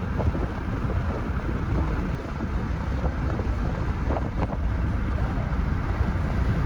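Strong wind buffeting the microphone, a steady low rumbling noise, with the wash of sea waves beneath it.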